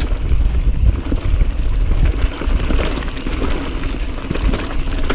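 Mountain bike riding fast down a dry dirt trail: tyres crunching over loose dirt and small rocks, with many quick rattles and clicks from the bike, under a heavy wind rumble on the camera microphone.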